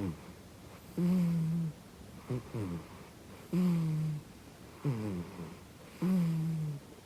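A cat snoring loudly with every breath while awake. Each breath brings a steady low droning note of under a second, then a shorter note sliding down in pitch, about every two and a half seconds.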